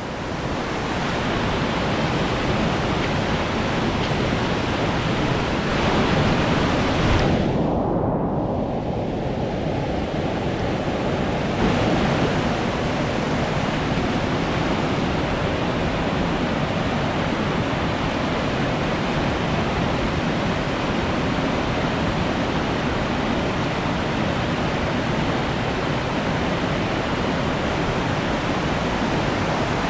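Whitewater river rapids rushing in a steady wash of water noise around a kayak. About seven seconds in, the sound goes dull and muffled for about four seconds, then returns to full brightness.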